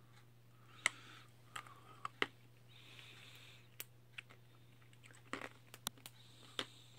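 A pet squirrel scrabbling about in bedding: soft rustling of fabric with a dozen or so irregular sharp clicks.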